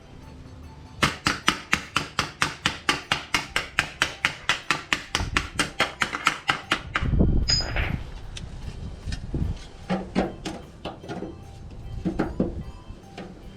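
Hammer beating a steel sheet: a quick, even run of blows, about five a second, for some six seconds, then a low thud and a few scattered taps. This is hand-forming a steel patch panel for a car's rusted side sill.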